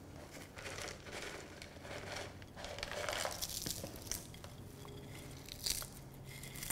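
Crispy fried onions crushed and crumbled between the fingers on a plate, a soft, irregular crackling and crunching.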